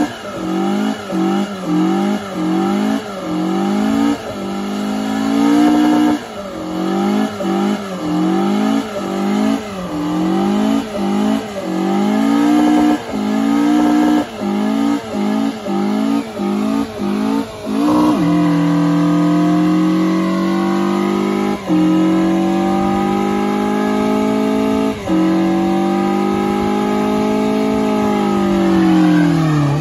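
The engine of a Hemi-swapped Toyota Corolla revving hard during a burnout. For the first half it is stabbed up and down in quick repeated revs, about one or two a second. It is then held at high revs while the rear tyres spin, the pitch creeping slowly upward with two brief dips, before the revs drop near the end.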